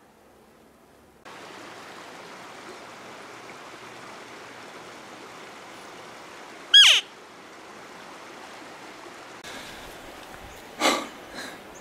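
A single short, high call that falls steeply in pitch, an elk call, heard over a steady background hiss. Near the end come a few brief noisy bursts.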